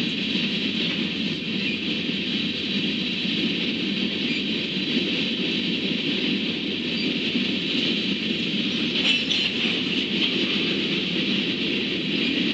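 Freight train of covered hopper cars rolling past, a steady noise of wheels on rail.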